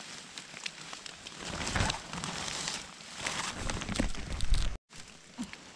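Rustling and crackling of dead leaves, twigs and a plastic raincoat as a gloved hand works through forest-floor litter picking a mushroom, in a few uneven bouts that break off suddenly near the end.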